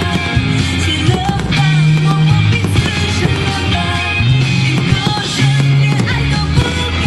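Loud rock music with a bass line that moves in long held notes under a melody.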